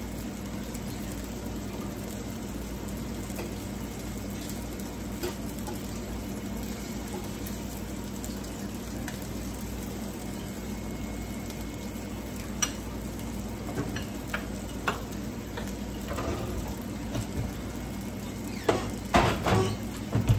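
Ripe plantain slices (maduros) sizzling in oil in a frying pan, with a few sharp utensil clicks against the pan partway through. Near the end comes a louder clatter of cookware being handled.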